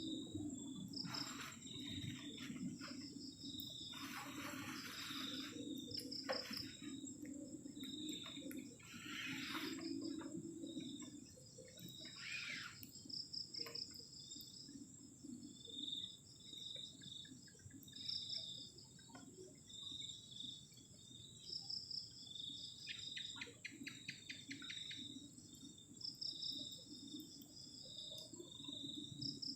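Crickets and other night insects calling: a steady high-pitched trill with rows of regular pulsed chirps over it, and a few louder short rasping calls standing out now and then.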